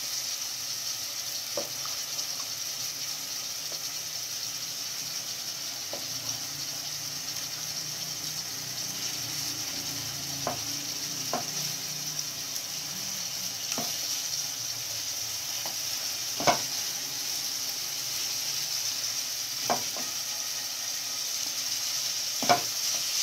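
Beaten egg sizzling as it sets in hot oil in a nonstick wok while a spatula stirs it, with an occasional click of the spatula against the pan, the sharpest about two-thirds through and near the end.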